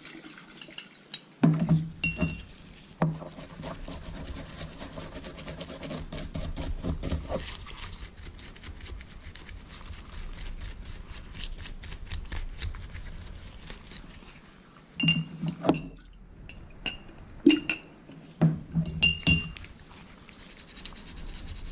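Sharp clinks of glass and metal, with a short ringing tone, near the start and again a few times near the end. In between, a long stretch of fine scratchy rubbing as a small die-cast metal toy truck body, freshly stripped in thinner, is scrubbed in gloved hands.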